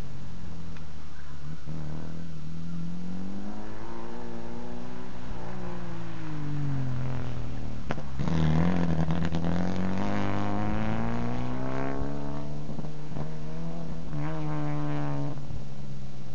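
Saab Sonett's V4 engine being driven hard, its pitch rising and falling over and over as the car accelerates and lifts through a cone course, with a sharp climb about halfway through.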